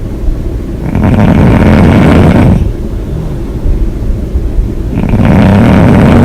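A woman snoring hard: two long, loud snores about four seconds apart, one about a second in and another starting near the end, with quieter breathing between.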